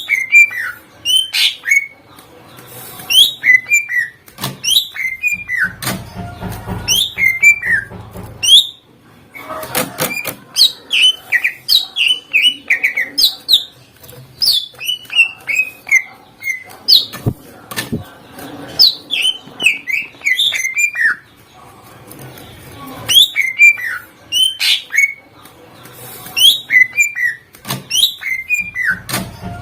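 Cucak ijo (greater green leafbird) singing loud, rapid bursts of sharp, falling whistled notes, in a song packed with mimicked phrases. There are brief pauses between the bursts, about a third of the way in and again about two thirds of the way in.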